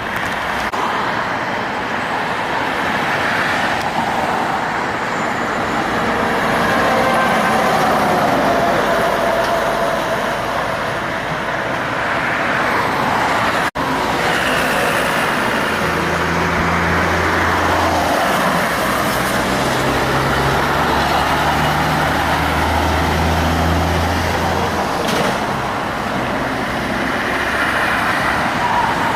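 Heavy traffic passing on a highway, with tyre and engine noise from trucks and cars. After a brief break about halfway, a big diesel truck engine drones low and close, its pitch stepping up and down for about ten seconds before the traffic noise takes over again.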